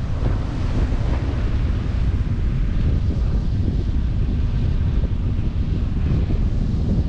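Strong wind buffeting the microphone: a loud, constant, uneven low rumble.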